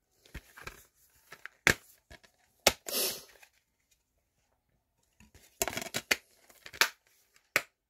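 Plastic DVD case being handled and opened: scattered sharp clicks and short rattles of the case and its disc trays, a few early on and then a quick cluster a little past halfway.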